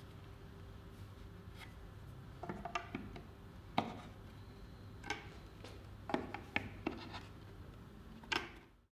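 Metal key clicking, scraping and knocking in the Clamex P-14 connectors' tensioning levers as the two connectors of a 45° mitre joint are drawn tight through their access holes. About a dozen short clicks come in small clusters over the last six seconds, over a low room hum, and the sound cuts off just before the end.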